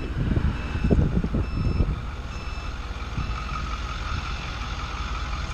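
Forklift reversing alarm beeping about once a second, stopping about two and a half seconds in, over vehicle engine noise and a low rumble.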